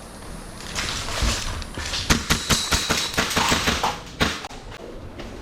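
Airsoft gun firing a quick string of about ten sharp shots, roughly five a second, then one last shot.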